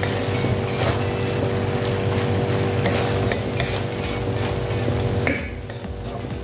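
Wooden spatula stirring and scraping diced chicken gizzards, liver and vegetables in a nonstick wok as they sizzle, with repeated scrapes and knocks over a steady low hum. The stirring noise falls away for about the last second.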